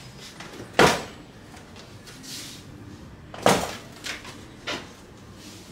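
Bike parts and packaging being handled and set down, with a sharp knock about a second in and another partway through, followed by two lighter knocks.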